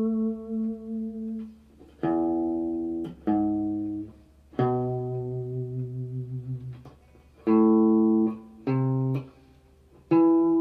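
Acoustic guitar playing A minor, D minor and E major arpeggios slowly, one plucked note at a time, each left to ring for a second or more. About six notes are picked, with a longer held note in the middle.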